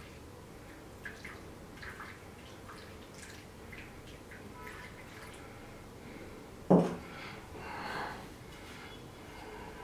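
Faint drips and trickles of liquid as the solvent layer is poured off slowly from a glass flask of used engine oil, then one sharp clunk about seven seconds in as the glass flask is set down on the desk.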